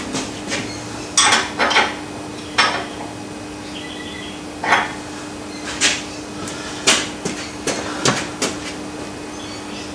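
Irregular metallic clinks and clanks of a spanner and other steel tools against the lathe's stand while the levelling adjusters are worked, about ten sharp knocks spread unevenly, over a steady faint hum.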